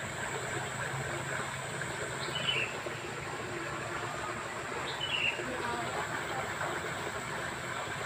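Outdoor background noise: a steady hiss with a low hum and a constant high-pitched whine. A bird chirps twice, briefly, about two and five seconds in.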